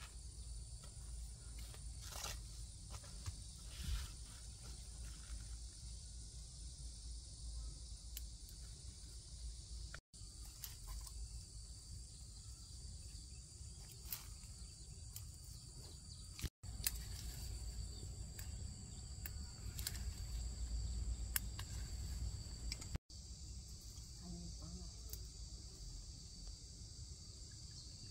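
Insects droning steadily in two high-pitched bands over a low rumble, with scattered light taps and knocks. The sound breaks off for an instant three times.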